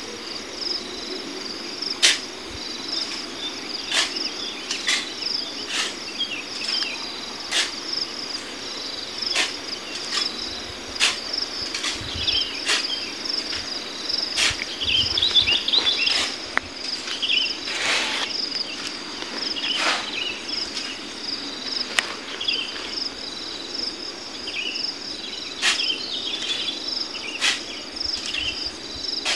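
Sand being shovelled by hand into a dump truck: the shovel scrapes and sand lands on the heap, one stroke every second or two. Behind it a steady, high-pitched insect chorus runs.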